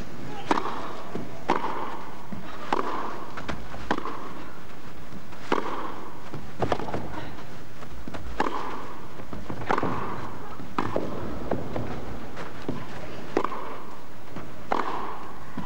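A tennis rally: a racket strikes the ball over and over, making a sharp knock about once a second, with the ball's softer bounces between.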